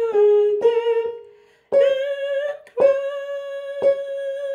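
A woman singing long held notes of a hymn's soprano melody line, with a short break about a second in. Each new note starts with a sharp struck attack, from notes picked out on a keyboard along with the voice.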